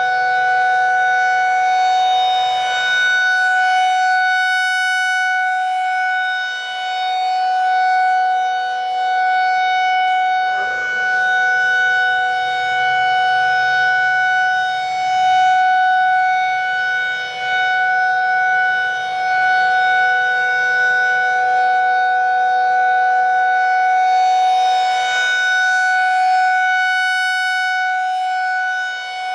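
Federal Signal 2001-SRN rotating electromechanical warning siren sounding a steady tone at full speed during a test. Its loudness wavers slightly as it turns.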